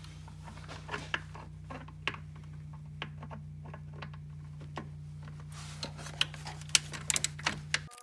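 A ratchet with an extension and 13 mm socket clicking as it turns the battery hold-down bolt loose. Scattered clicks come first, then a quicker run of clicks near the end, over a steady low hum.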